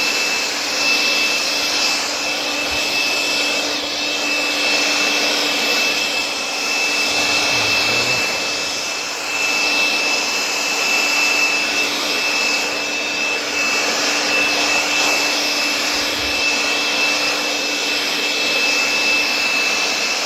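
Leaf blower running steadily, a constant rushing of air with a steady high whine.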